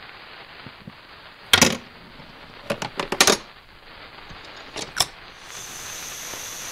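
A few sharp clacks of hard balls knocking against each other and the metal rail as a chain-reaction machine runs, the loudest about one and a half seconds in and a quick cluster around three seconds. About five and a half seconds in, a steady hiss starts as the gas canister stove's burner is turned on and lit.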